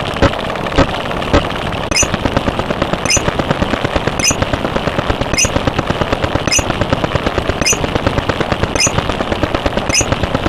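Machine-gun fire sound effect: a rapid, unbroken string of shots with a brighter crack about once a second. About two seconds in it takes over from slower clicks, spaced about half a second apart, over a steady hum.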